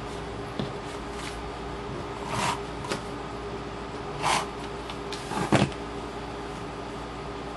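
A handheld adhesive tape runner is drawn across the back of paper die cuts in two short scraping strokes, with paper handling between them. A pair of sharp knocks, the loudest sound, comes about two thirds of the way through, as the tool is set down on the table. A steady low hum runs underneath.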